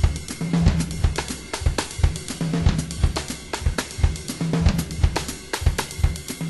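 Music: a steady drum-kit beat with kick drum, snare and hi-hats, typical of a house track.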